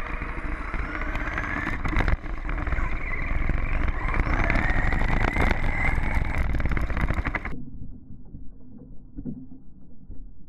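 Team Orion Vortex R8 brushless motor of an RC car whining and rising in pitch as it accelerates, twice, over dense rumbling tyre and chassis noise heard from a camera mounted on the car. About seven seconds in the sound cuts off abruptly to a faint, dull rumble.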